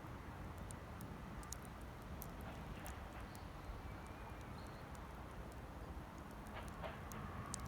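Wood campfire crackling: scattered sharp pops and snaps over a low steady rumble.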